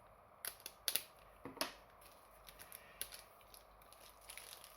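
Hands handling the small paper and plastic pieces packed with a toy: a quick run of sharp clicks and taps in the first second and a half, then lighter ticks and faint rustling.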